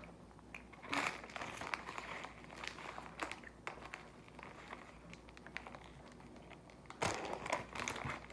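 Crinkling of a plastic bread wrapper being handled, in short scattered rustles, louder about a second in and again near the end.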